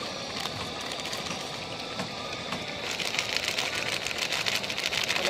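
Mutton and tomato masala frying in a pressure cooker: a steady sizzle that turns into dense, rapid crackling about three seconds in.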